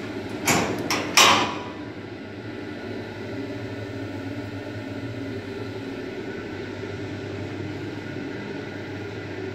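A few sharp knocks in the first second and a half, the last the loudest, then a steady low hum.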